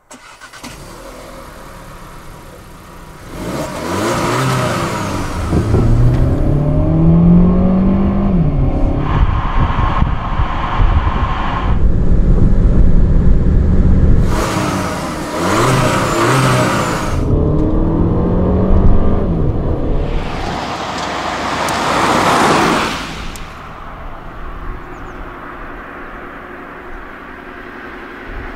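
Audi A3 Sedan's 1.4 TFSI four-cylinder turbocharged petrol engine under hard acceleration in a string of short clips, its note rising through each gear and dropping at the upshifts. Near the end it settles to a quieter, steady running note.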